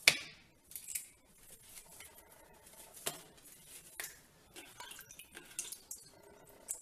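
Stainless steel plate clinking as ragi dough is kneaded on it by hand: a few sharp clinks, the loudest at the very start and others about three and four seconds in and near the end, with faint ticks and rubbing between.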